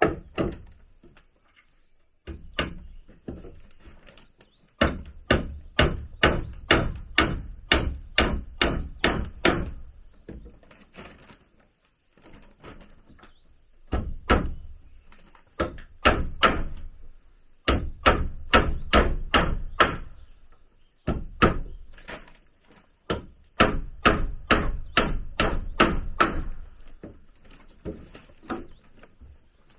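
A tool striking wood over and over, about three blows a second, in runs of several seconds with short pauses between.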